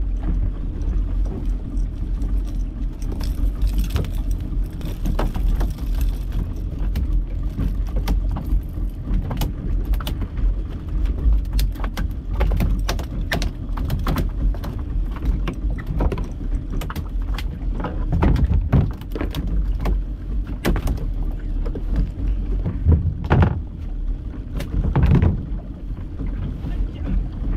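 Small fishing boat's motor running steadily under wind and water noise, with scattered sharp clicks and knocks from fishing gear being handled on deck.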